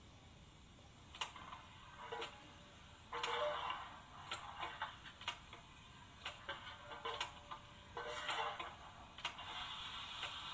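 Zimo sound decoder in a Roco H0 model of a DR class 55 steam locomotive, playing slow steam exhaust beats through its small speaker: sharp clicks about once a second with two longer hissing puffs, and a steady hiss setting in near the end.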